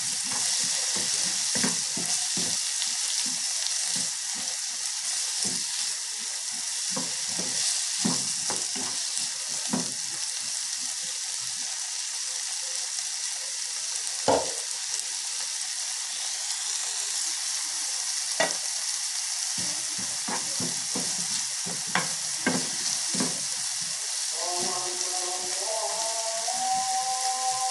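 Diced bell peppers and onion sizzling in a frying pan while being stirred, with a steady hiss and the spatula knocking and scraping against the pan now and then.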